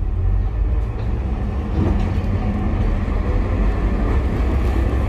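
Streetcar running, heard from inside the car: a loud, steady low drone that grows a little louder about two seconds in.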